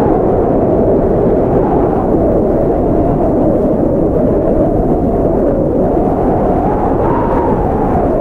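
Blizzard wind blowing steadily: a low, dense rushing with a faint tone on top that slowly wavers in pitch, rising about seven seconds in.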